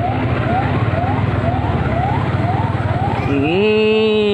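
Vehicle driving with steady engine and road rumble and a faint rising squeak repeating about twice a second. About three seconds in, a horn gives one long steady honk lasting about a second.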